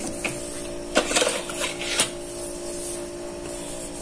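A steady low hum with a few light knocks: a short clatter about a second in and a single sharp knock at about two seconds.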